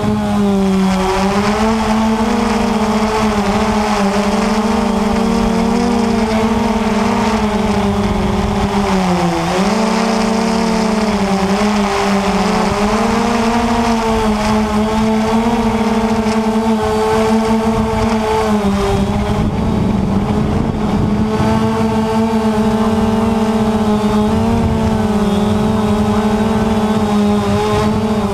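Quanum Nova quadcopter's four brushless motors and propellers buzzing in flight, heard from the camera on board. It is a steady hum whose pitch wavers and dips briefly a couple of times as the throttle changes, with wind rushing over the microphone.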